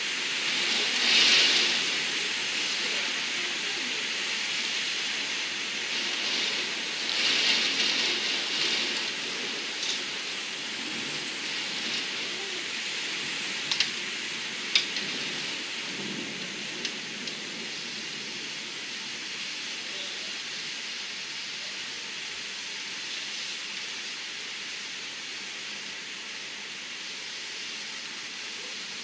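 Heavy storm rain pelting a window pane, a steady hiss that swells with gusts about a second in and again around eight seconds in, with a few sharp ticks on the glass about halfway through.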